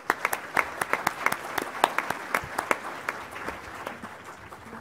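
Audience applauding, starting sharply and thinning out toward the end.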